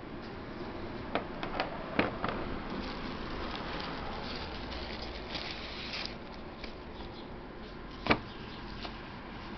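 Angle grinder flange nuts and other small metal parts being handled and set down on a table: a few light clicks and knocks about one to two seconds in, then rustling, and one sharp knock about eight seconds in, the loudest.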